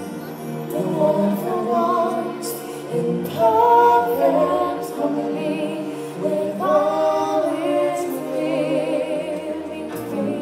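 Stage-show music with singing: voices hold long, wavering sung phrases over sustained backing chords, a new phrase starting about every two to three seconds.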